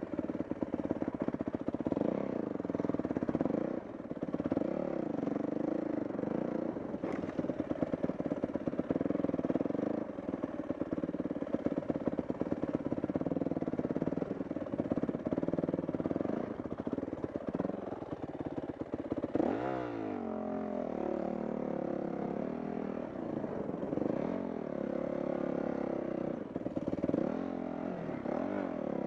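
Dirt bike engine running under changing throttle, revs rising and falling continuously, with a sharp dip and climb in revs about two-thirds of the way through.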